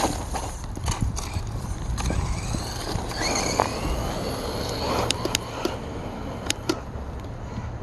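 Redcat Volcano electric RC monster truck being driven: its motor whine rises about three seconds in, with scattered sharp knocks of the truck hitting the ground, over a steady low rumble.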